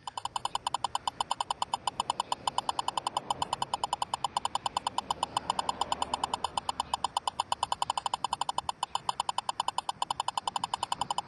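Stalker lidar gun's audio tone sounding as a rapid, even train of high beeps while it fires at an approaching car. The gun shows an E04 error code and gets no speed or distance lock, the sign that a Laser Star laser jammer is jamming it.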